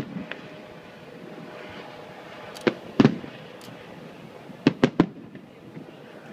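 Aerial firework shells bursting: a bang at the start, two about three seconds in, then a quick run of three about five seconds in.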